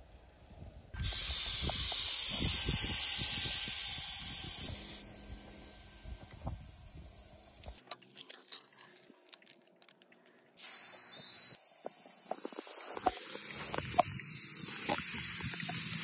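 Air hissing out of a Suzuki Jimny's tyre valve through a hand-held deflator, letting tyre pressure down for driving on sand. A loud hiss lasts about three and a half seconds and stops, a short burst follows later, then a steadier, softer hiss, with small clicks of the tool between.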